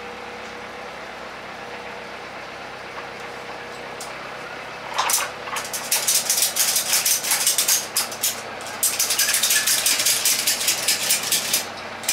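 Ratchet tie-down strap being cranked tight to hold a load: a fast clattering run of ratchet clicks starts about five seconds in, breaks off briefly, then goes on again, over a steady hum.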